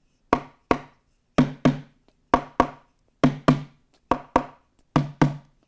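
A plastic bucket struck with a thick drumstick, played in a samba rhythm. The strokes come in pairs, two quick hits about once a second.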